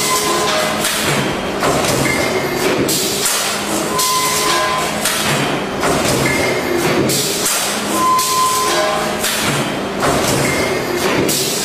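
CDP-260C stamping press running coil-fed steel strip through a progressive die: repeated thuds of the press strokes, about one a second, with a brief high tone sounding every couple of seconds.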